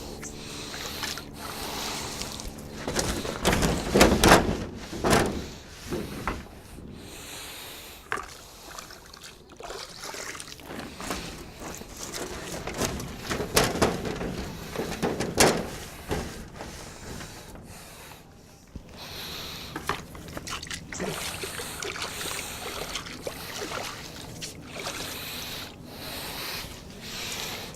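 Water sloshing and splashing with irregular scrubbing and wiping as greenhouse panes are washed down to clear algae, with a few louder knocks against the structure.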